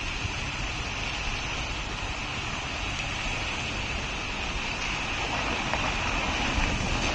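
Heavy lorry approaching at a distance, its engine and tyres slowly growing louder, over a steady high hiss.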